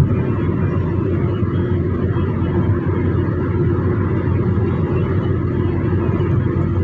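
Steady low road noise and engine drone inside a car's cabin while driving along a highway, with no change through the stretch.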